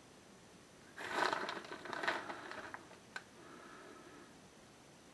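Plastic bag of shredded cheese crinkling and rustling while shredded cheese is spread by hand, in a burst of about two seconds starting a second in, followed by a single small click.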